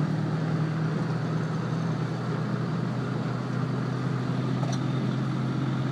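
Four-wheel drive's engine running steadily at low revs as it wades through deep flood water, heard from inside the cab as a steady low hum under a wash of water noise.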